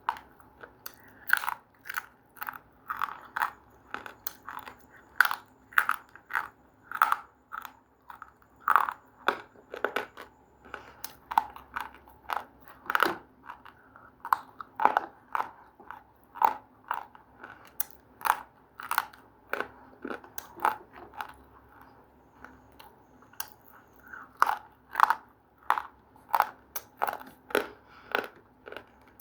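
Crunchy food being chewed close to the microphone: a steady series of sharp, crisp crunches, roughly one or two a second, with brief pauses between bites.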